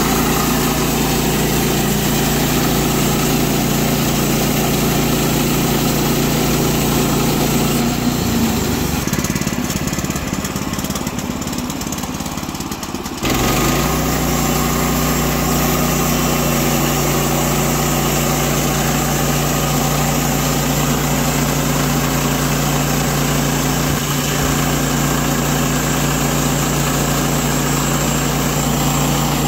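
Small gasoline engine of a Norwood PM14 portable bandsaw mill running steadily under load while its band blade saws through a wooden cant. About eight seconds in, the sound drops quieter for roughly five seconds, then comes back suddenly at full level.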